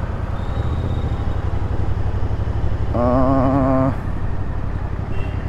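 Motorcycle engine running under steady road rumble in traffic, with a vehicle horn sounding once for about a second, about three seconds in. The bike is a Royal Enfield Interceptor 650, a parallel twin.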